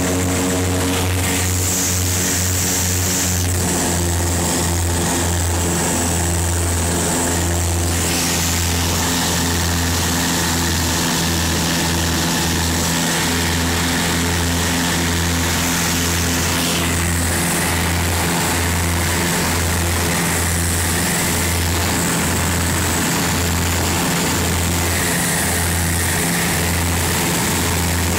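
Beechcraft Duchess twin piston engines and propellers droning steadily, heard inside the cabin, with a regular low throb about once a second over a steady hiss. The engine note shifts slightly about three to four seconds in.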